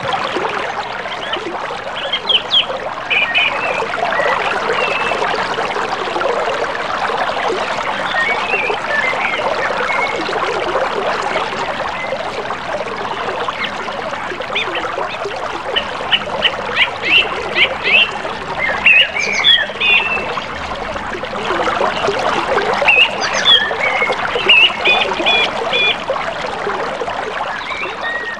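River water flowing steadily, with short high bird calls coming in a few brief clusters over it.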